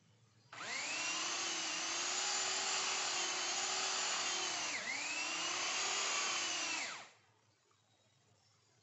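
Chainsaw running at full speed as it cuts into the base of a tree trunk. It starts about half a second in, sags in pitch briefly near five seconds as it bogs under load, then stops abruptly near seven seconds with no idling before or after.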